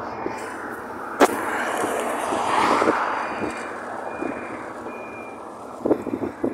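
Road traffic: a vehicle passing, its noise swelling to a peak midway and fading again. A sharp click comes about a second in, and a few faint short beeps near the middle.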